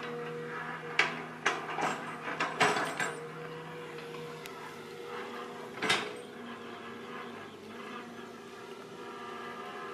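Long-reach excavator's engine running steadily, with a quick run of sharp metal clanks and knocks between about one and three seconds in and one more clank near six seconds.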